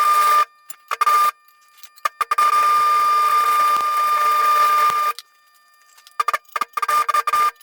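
Electric arc welding: a steady crackling buzz with a high hum that starts and stops abruptly, a short burst, a longer weld of about three seconds, then several quick stuttering tacks near the end.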